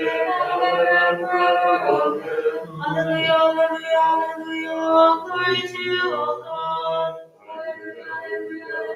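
Unaccompanied Byzantine liturgical chant from vespers, sung in long held notes that step from one pitch to the next every second or so.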